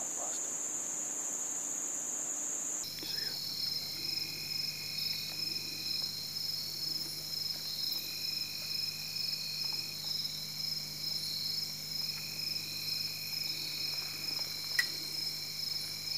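Steady high-pitched trilling of crickets and other insects. About three seconds in the chorus changes abruptly, after which several insects trill at different pitches, one of them starting and stopping every second or two. A single sharp click sounds near the end.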